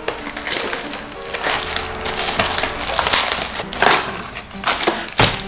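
Cardboard Pokémon booster box being handled and opened by hand: crinkling, rustling and scraping of the packaging, with sharper crackles around four and five seconds in.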